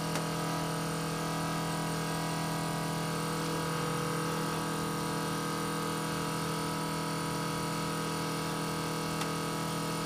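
Electric fuel pump running with a steady hum, holding the fuel system at about 7 psi for a leak check.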